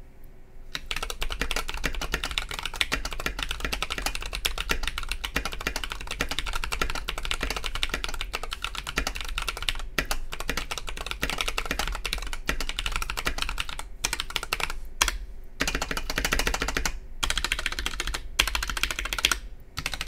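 Fast continuous typing on a stock Keychron V3 tenkeyless mechanical keyboard with Tecsee Sapphire tactile switches and plastic custom keycaps: a dense run of key clicks with a few short pauses in the second half. The unmodded board sounds really hollow, pingy and clacky.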